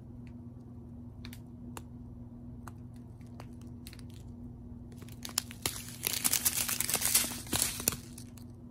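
Clear plastic bags of round diamond-painting drills being handled: scattered light clicks at first, then, about five seconds in, a dense burst of plastic crinkling lasting nearly three seconds.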